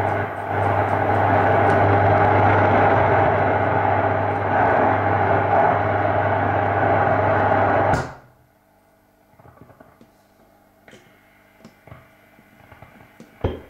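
1936 RCA C8-20 tube radio console's loudspeaker giving out loud static and hiss as its tuning knob is turned, with a steady low hum underneath. The sound cuts off suddenly about eight seconds in, leaving only a few faint clicks.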